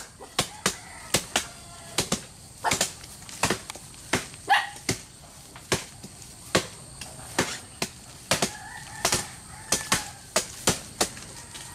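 A blade chopping repeatedly into the fibrous crown of a coconut palm, hacking it open. The sharp blows come at an uneven pace, about two a second.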